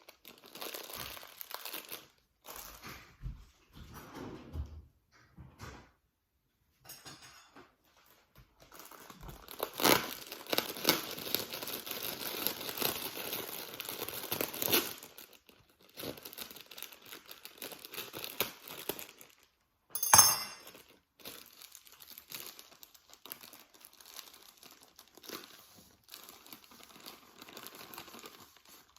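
Crinkling and tearing of a cake-mix bag being opened and handled, in irregular rustling spells with a denser stretch in the middle. A single sharp knock stands out about twenty seconds in.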